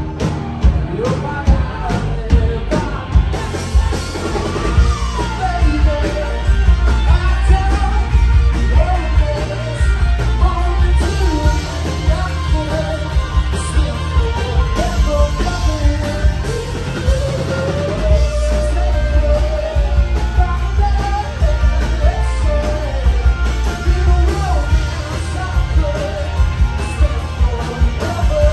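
Live rock band playing loud: a lead singer's vocals over electric guitars and a drum kit.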